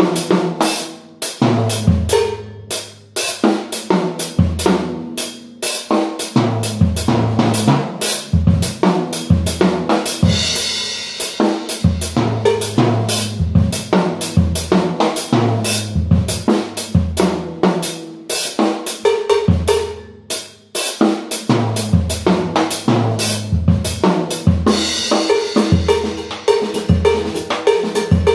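Acoustic drum kit played with sticks in fast, busy patterns that mix snare, bass drum, toms and cymbals. The playing breaks off briefly a few times, and a cymbal washes out near the middle and again near the end.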